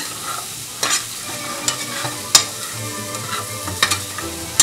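Red and green bell peppers with garlic and chili flakes sizzling in oil in a stainless steel skillet, stirred with a metal spoon that clinks and scrapes sharply against the pan several times.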